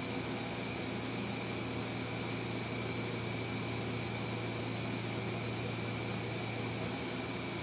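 Steady room background noise: a constant low hum with a thin high whine over an even hiss, unchanging throughout, of the kind an air conditioner or fan makes.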